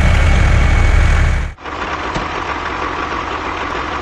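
An engine running loud and low, cut off abruptly about a second and a half in, then a quieter engine running steadily.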